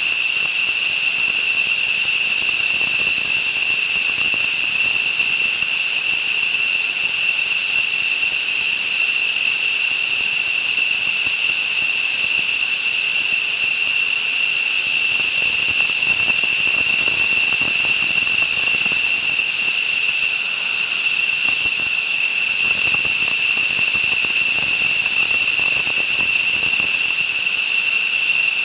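Jet turbine engine running steadily: a high-pitched whine of several fixed tones over a loud hiss, unchanging throughout.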